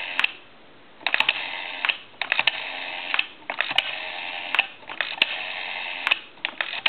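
Rotary dial of a candlestick telephone being wound and released over and over, each return a run of about a second of whirring and rapid pulse clicks, with short pauses between digits.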